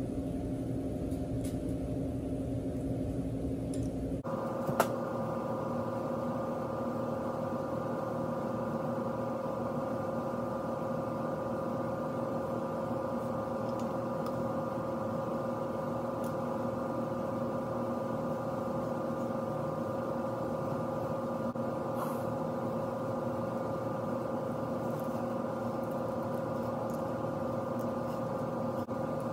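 A steady droning hum at a constant pitch, which changes character abruptly about four seconds in. A couple of faint clicks from metal lathe tailstock parts being handled sound over it.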